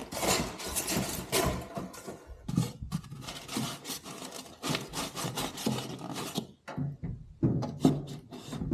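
Cardboard and packing material being pulled and shifted around the toolbox: irregular scraping and rustling, with a brief pause near the end.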